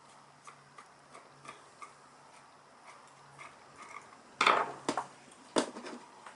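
Light clicking, about three a second, then three loud sharp cracks in the last two seconds, the first the loudest, as the plastic case of a Makita soldering iron's battery-mounted control unit is prised apart.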